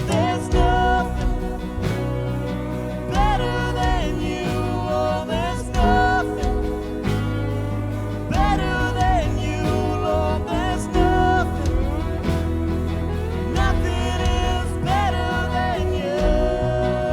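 Worship band music, with a melody that slides between notes over a steady low accompaniment.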